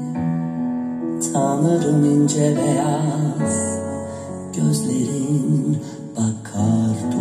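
A slow song with a singing voice and guitar, played back from CD through a hi-fi system of ITT Hyperion H2-70 loudspeakers and a Grundig V 5000 amplifier.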